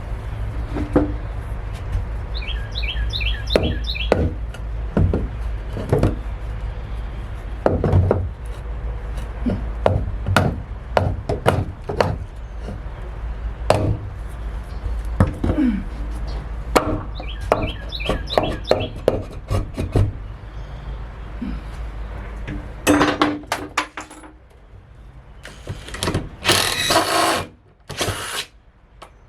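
Wood being knocked and struck apart by hand, many irregular sharp knocks and thwacks on boards, with a few clusters of short high squeaks. Several loud rushing bursts come near the end.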